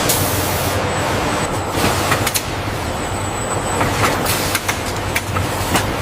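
Factory machinery running with a steady low hum. A loud hiss, like compressed-air spraying, stops about two seconds in, followed by scattered sharp clicks and knocks.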